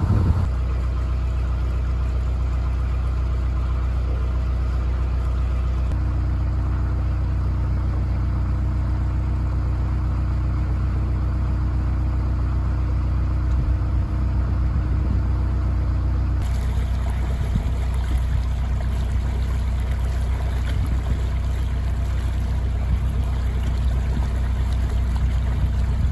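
Widebeam canal boat's diesel engine running steadily under way, a low continuous drone whose tone shifts slightly about six and sixteen seconds in.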